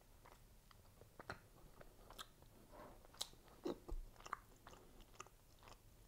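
A person quietly chewing a bagel topped with whipped topping: faint, irregular small crunches and mouth clicks.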